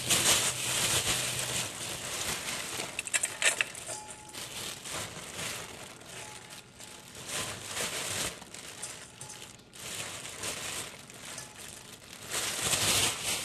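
Plastic bag crinkling and shredded cabbage rustling as it is pulled out by hand, in uneven bursts.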